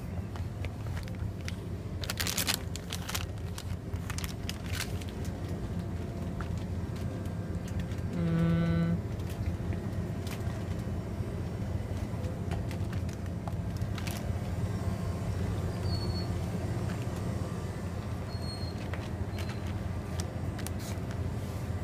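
Steady low hum of shop background noise, with the crinkle and handling of a plastic candy bag as a cluster of sharp clicks about two to five seconds in. About eight seconds in there is a brief pitched tone lasting about half a second, the loudest moment.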